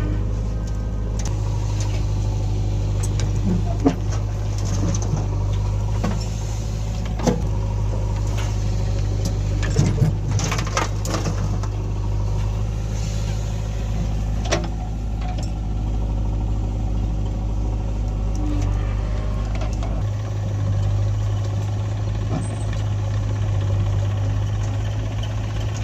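JCB 3DX backhoe loader's diesel engine running steadily under work, with sharp knocks and clanks now and then, likely the bucket and arm. The engine note changes about twenty seconds in.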